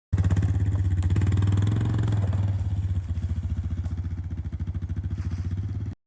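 Two-stroke chainsaw engine running steadily with an even firing rhythm, a little softer after about three seconds; the sound cuts in and cuts off abruptly.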